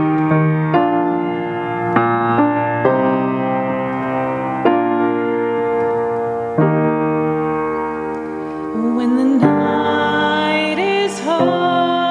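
Grand piano playing slow, sustained chords, a new chord struck every one to two seconds. Near the end a woman starts singing over it.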